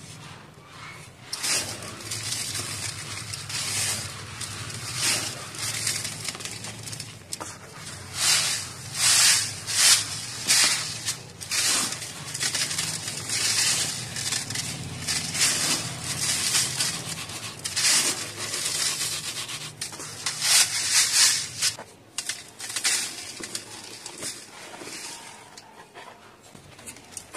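Crumbly lumps of red dirt being crushed and rubbed by hand against a metal mesh sieve, a gritty crunching rasp in repeated strokes as the powder is worked through the mesh. The strokes fade to a quieter rustle for the last few seconds.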